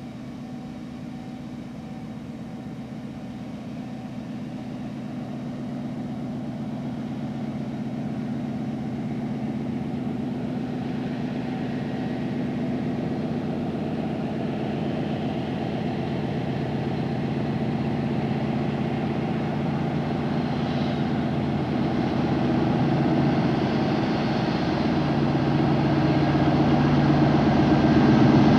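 British Rail Class 56 diesel locomotive approaching with a goods train. Its Ruston-Paxman 16-cylinder diesel engine makes a steady, deep drone that grows steadily louder as the locomotive nears.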